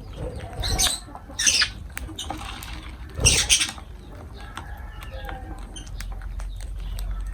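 Lovebirds calling in short, shrill, noisy squawks: three loud ones in the first four seconds, with many small clicks and taps around them.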